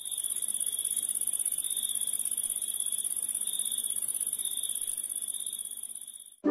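A shrill, high-pitched electronic buzz with a fast flutter of about ten pulses a second, fading out over the last second and cutting off.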